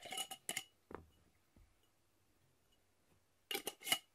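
Light, ringing clinks and clicks of a small hard object handled in the hands: a few at the start, one about a second in, and a louder pair near the end.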